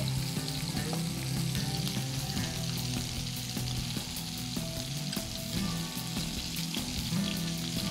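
Skewered chicken mince kebabs shallow-frying in hot oil in a pan: a steady sizzle with fine crackles.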